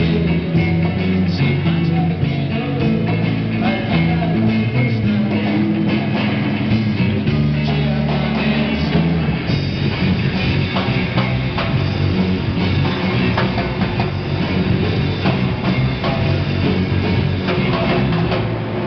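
Live rock band playing an instrumental passage: electric guitars over a steady bass line, with drums and congas keeping the beat.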